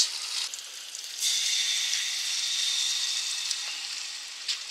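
Barbecue sauce sizzling as it is squeezed into a hot steel canteen cup on a camp stove. The sizzle starts suddenly about a second in and slowly dies down.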